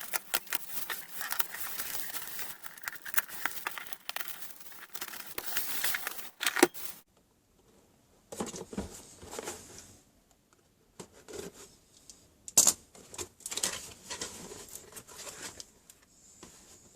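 Box and its packaging being opened by hand: continuous tearing and crinkling for about seven seconds, a short pause, then intermittent rustling with one sharp click a little past the middle.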